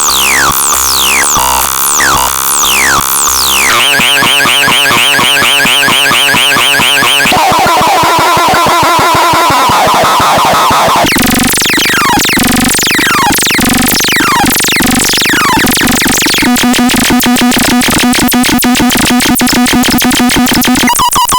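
Synthesizer sound demo cycling through patches every few seconds: rapidly repeated falling pitch sweeps like laser zaps, then warbling wobbling tones, then zaps again, and near the end a fast pulsing buzz.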